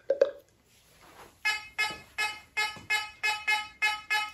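Fisher F44 metal detector giving its target tone as a run of short, evenly spaced beeps, about three a second, starting about a second and a half in, as a metal test target passes repeatedly over the search coil. A couple of short clicks come right at the start.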